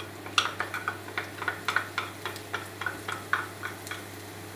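Chopped garlic frying in hot oil in a wok, crackling with a run of sharp, irregular pops, several a second.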